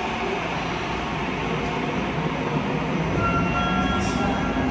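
Tokyo Metro Namboku Line subway train pulling in and coming to a stop at the platform, with steady running noise. About three seconds in, a thin steady tone starts over it and holds to the end.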